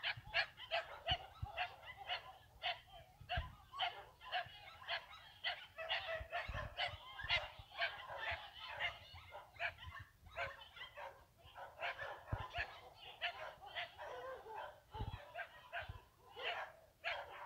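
Dogs barking in a rapid, unbroken string of sharp barks, several a second, around a dogfight in which a pit bull holds another dog by its bite.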